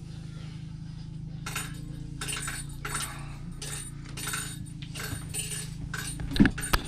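Irregular rustling and light clinks of handling over a steady low hum, with two sharp knocks near the end.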